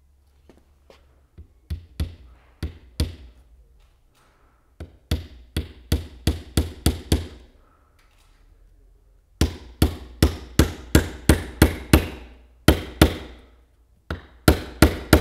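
Small ball-pein hammer driving nails into the timber rail of a wooden beehive floor: a few light taps to start a nail, then runs of quick sharp blows, about three a second, with short pauses between the runs.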